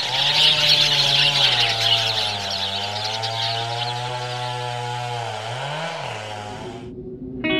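A chainsaw running, its engine note holding fairly steady with a brief dip and rise near the end. A loud high rasp over it in the first two seconds eases off after that. It cuts off suddenly about seven seconds in.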